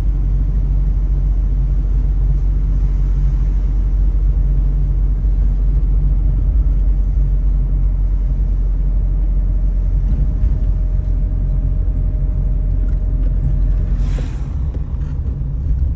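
Steady low rumble of a car driving on a city road, engine and tyre noise together. The rumble eases somewhat about fourteen seconds in, after a brief swell of noise.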